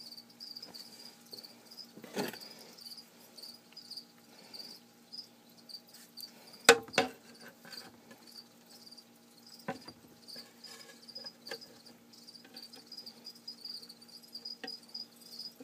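Feeder crickets chirping continuously, a rapid train of high, thin pulses. A few sharp knocks break in, the loudest about halfway through, in time with feeding tongs working in the plastic enclosure.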